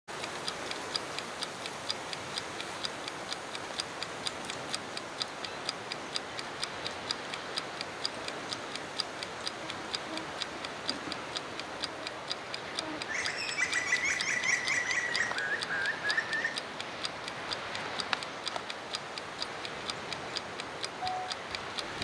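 Steady ticking of a Flow Mow time-lapse panning head as it slowly turns the camera. A bird chirps in a short run of calls for a few seconds about midway.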